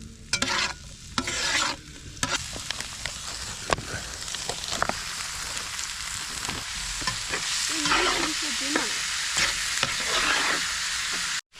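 Mince and onions sizzling in a camp oven, stirred with a utensil that scrapes against the pot now and then.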